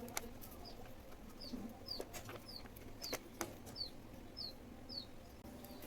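A bird chirping in the background: a string of about eight short, high, falling chirps, evenly repeated about twice a second. A few light clicks come in between.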